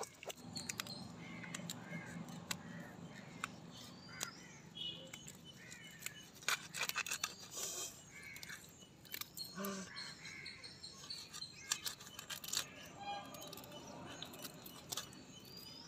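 Hybrid tilapia being cut and cleaned on a curved blade fixed to a wooden board, giving repeated short clicks and scrapes, with birds chirping and crows calling in the background.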